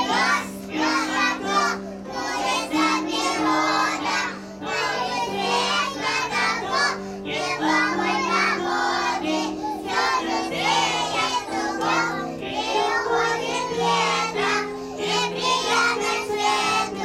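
A group of young children singing a song together, with steady held notes of a musical accompaniment underneath.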